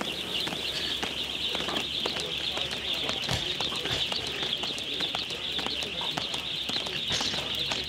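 Many small birds chirping at once in a dense, unbroken chorus, with scattered light clicks.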